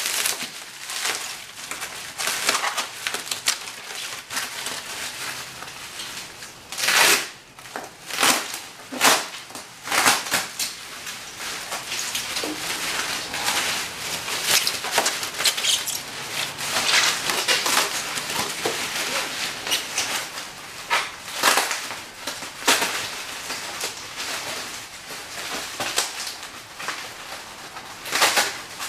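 Bubble wrap being handled and pulled off a long wrapped part: steady crinkling and rustling of plastic, with sharper, louder crackles every so often.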